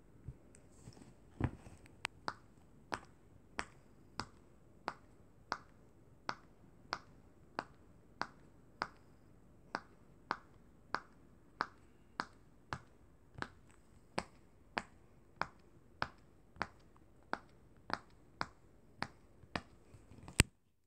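Silicone pop-it fidget toy with a finger pressing its bubbles one after another. Each press gives a short pop, about one and a half a second in a steady rhythm. A louder pop comes near the end.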